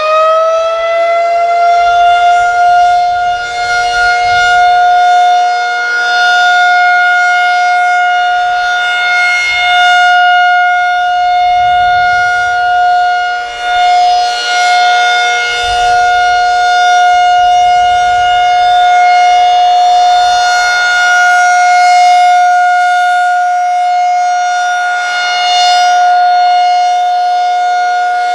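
Federal Signal 2001SRN electromechanical warning siren finishing its wind-up, its pitch levelling off in the first couple of seconds, then holding a loud steady tone: the steady alert signal of a monthly siren test.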